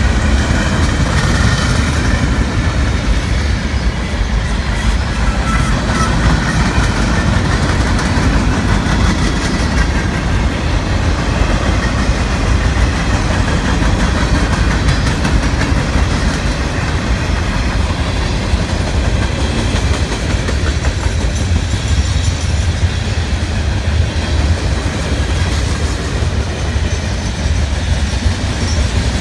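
Freight cars of a long train rolling past, their steel wheels on the rails making a steady, loud noise.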